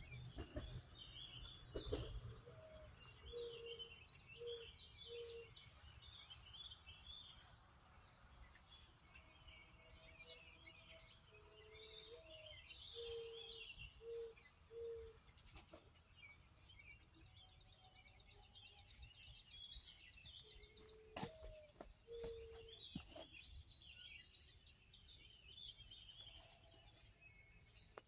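Faint outdoor birdsong: several birds chirping and singing, with a fast high trill about two-thirds of the way in. A low call of three or four even notes comes three times.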